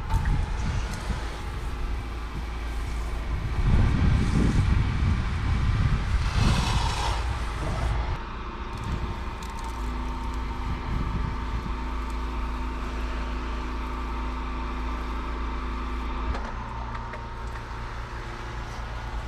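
A pressure washer's engine runs steadily, with a louder rushing spell from about four to eight seconds in. Near the end the hum shifts to a slightly different note.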